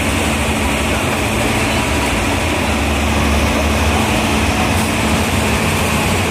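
Helicopter flying away overhead: steady rotor and turbine noise with a low rumble and a constant hum.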